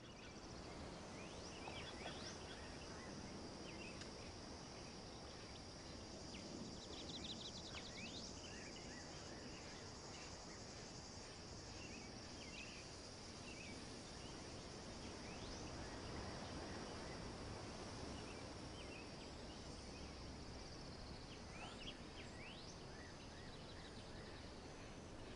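Faint outdoor nature ambience: a steady high insect drone with scattered short bird chirps and a quick trill about seven seconds in.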